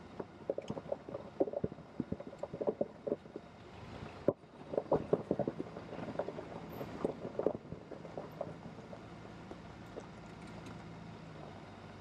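A vehicle driving on a gravel road: tyres crunch over loose stones with many irregular knocks and rattles. Near the end the knocks thin out, leaving a steady low running hum.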